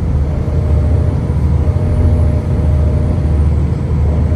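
Steady low rumble of a moving car heard from inside the cabin: tyre and road noise with engine hum.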